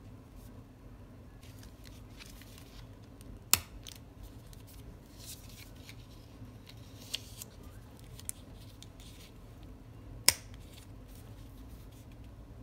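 Stationery handled on a desk: a pen and a small plastic-covered mini planner, with soft paper and plastic rustling. Two sharp plastic clicks come about seven seconds apart, with a couple of lighter clicks between them.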